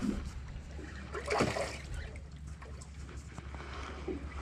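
Fishing boat's engine running with a steady low hum, with water splashing against the hull; the splashing is loudest about a second and a half in.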